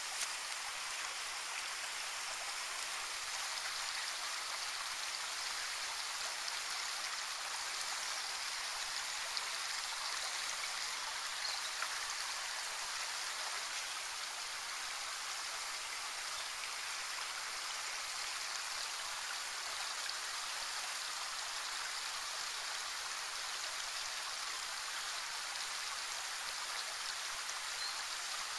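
A small woodland stream flowing, a steady rushing and babbling of water.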